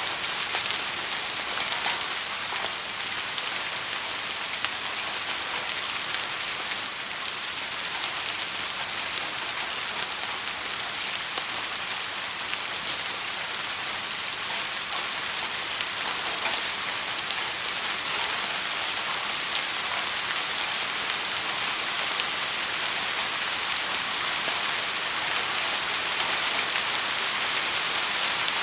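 Steady soft rain falling, an even hiss with many small scattered drop ticks and no thunder.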